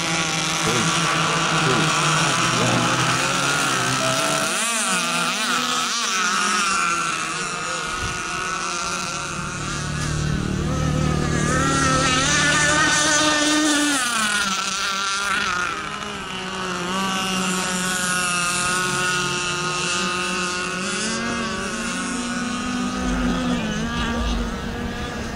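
Several radio-controlled model racing boats running at speed on the water, their motors' pitch wavering and rising and falling as they race and turn.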